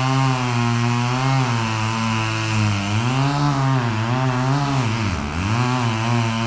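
Chainsaw running under load as it cuts into the trunk of a dead white oak, its engine pitch wavering up and down throughout and sagging sharply for a moment about five seconds in before picking up again.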